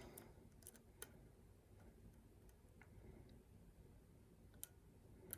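Faint, irregular clicks of a lock pick and tension wrench working the pins of a pin-tumbler lock held in a false set. There are about eight light ticks, a second or so apart.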